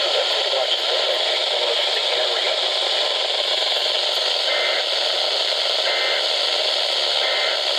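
Steady, loud radio static hiss from a weather radio receiver, with no intelligible broadcast. Three faint short tones come through in the second half, about a second and a half apart.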